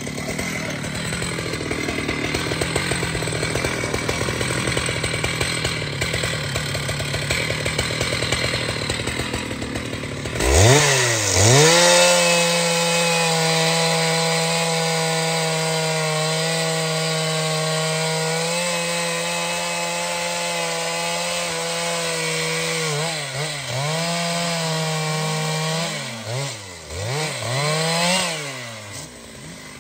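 Big two-stroke chainsaw cutting through hardwood with a dense rasping sound for about ten seconds. It then revs up sharply to a high, steady full-throttle whine. In the last few seconds the engine note dips and climbs again several times as the throttle is eased and blipped.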